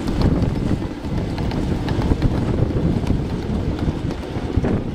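7½-inch gauge ride-on miniature train rolling along its track: a steady low rumble of wheels on rail with scattered light clicks, and wind buffeting the microphone.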